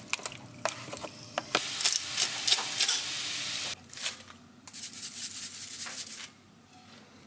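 Kitchen food-preparation noises while a chicken-and-salad lunch is made: scraping, rustling and sharp clicks, in two bursts that stop abruptly, then quieter near the end.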